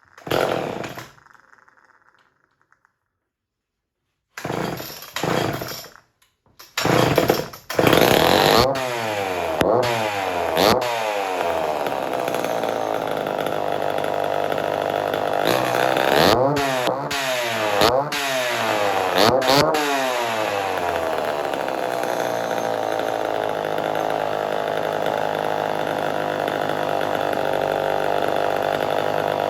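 Homelite Super XL two-stroke chainsaw being pull-started after a shot of priming fuel: a few short bursts, then it catches about eight seconds in. It is revved up and down several times, then settles into a steady idle.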